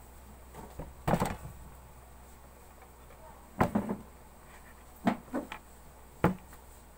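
A few short knocks and clatters of household objects being handled close by, in four quick clusters a second or two apart, over a low steady hum.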